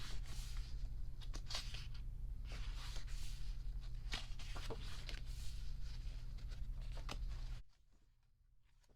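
Paper pages being turned and handled in short, repeated rustling swishes, over a steady low hum that cuts out abruptly about three-quarters of the way through.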